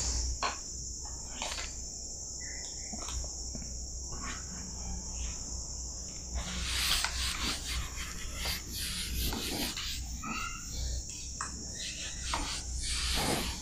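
A whiteboard eraser rubbed across a whiteboard in a series of short, irregular wiping strokes, over a steady high-pitched hiss.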